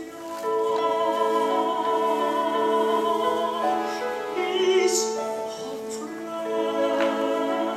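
Male tenor singing a slow ballad with vibrato in long held notes, accompanied by a small orchestra of violins, clarinets and flute.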